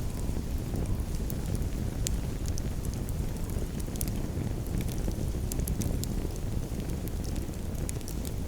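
Campfire burning, with frequent irregular crackles and sharp pops of the wood over a steady low rushing sound.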